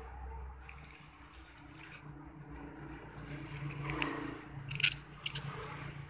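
Faint handling noise: fingers brushing and rubbing the stiff leaves of a potted snake plant and the rim of its plastic pot, with a few short clicks near the end.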